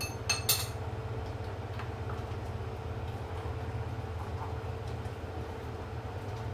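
Steady low mechanical hum of a kitchen appliance with a faint constant whine above it, and two sharp clicks about half a second in.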